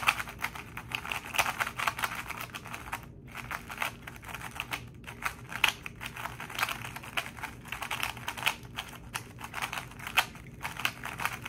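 Dayan TengYun M V1 magnetic 3x3 speedcube being turned fast for its first solves out of the box: dense runs of quick plastic clicks and clacks as the layers snap round, with a short pause about three seconds in. Fresh from the factory it turns a little dry and scratchy but really quiet.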